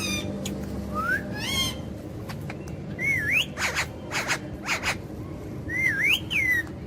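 Parrot whistling: three gliding whistles that rise and fall in pitch, with short sharp chirps between them.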